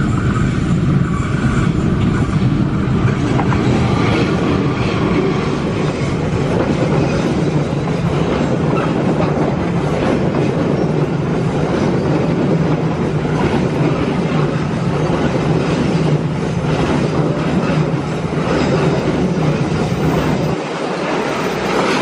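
Argo Parahyangan diesel-hauled passenger train passing close by: a steady diesel locomotive rumble, then the carriages rolling past with the clicks of the wheels over the rail joints. The lowest part of the sound drops away near the end.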